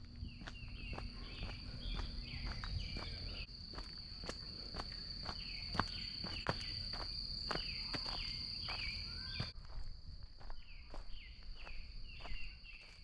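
Footsteps walking along a trail, about two steps a second, over a steady high-pitched insect drone and repeated short chirps. The drone fades somewhat about nine seconds in.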